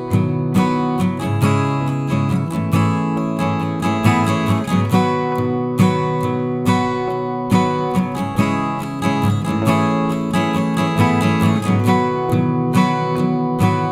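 Background music: strummed acoustic guitar playing a steady chord pattern.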